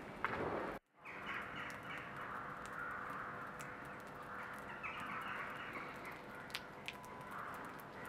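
Crows cawing, a run of short, slightly falling calls over steady outdoor background noise. The sound cuts out briefly for a moment just under a second in.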